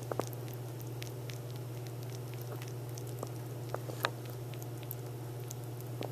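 Baby opossum eating: scattered small clicks and smacks of chewing, the sharpest about four seconds in, over a steady low hum.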